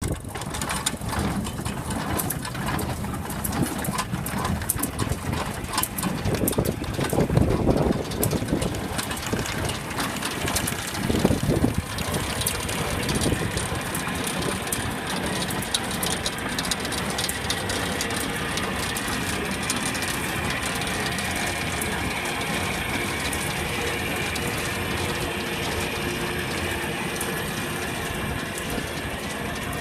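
International Harvester 430 hay baler with bale thrower running under tractor power: continuous mechanical clatter with rapid clicking and rattling, louder stretches about seven and eleven seconds in, settling to a steadier running sound in the second half.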